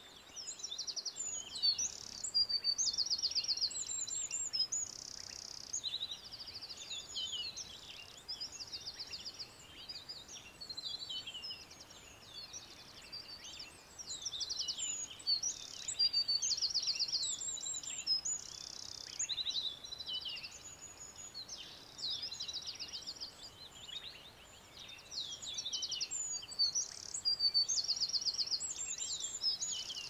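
Songbird song: a busy, varied run of high whistles and rapid trills that starts about a second in and swells and fades in long phrases, over a faint outdoor background.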